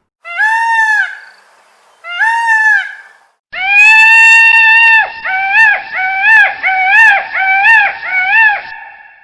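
Peacock calling: two short, arching calls about two seconds apart, then one long held call, then a quick run of six shorter calls at about two a second.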